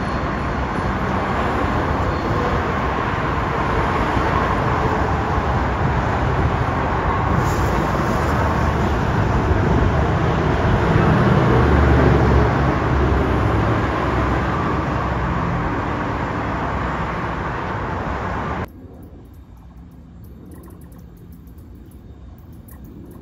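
A train rumbling past at close range, getting louder to a peak about halfway through and then easing. The sound cuts off suddenly near the end.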